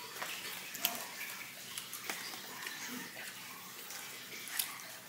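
Close-up eating sounds: chewing of birria crunch wraps, with wet mouth noises and scattered small crunchy clicks, two of them sharper about a second in and near the end.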